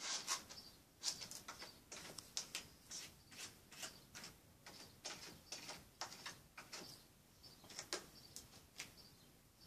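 A cat's paws scraping and raking granular litter in a plastic litter box, in quick irregular scratchy strokes, about two a second: the cat is covering its waste.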